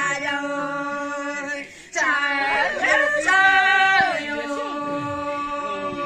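Women singing a warawi, a traditional Andean Quechua ritual song, unaccompanied in long, held, high notes that waver and bend at their ends, with a short breath pause about two seconds in.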